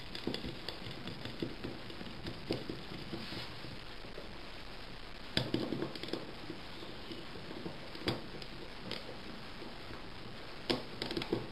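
Scattered light clicks and taps of small metal parts and a tool being handled, with a few sharper clicks from the middle on, as the brass float needle jet is screwed back into a BS38 carburettor body.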